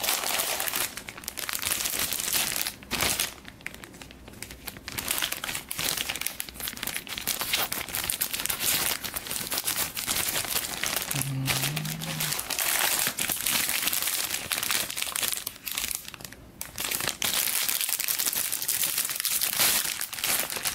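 Thin plastic bags around plastic model kit runners crinkling and rustling as the wrapped runners are handled and pulled out of the box, with a few short pauses.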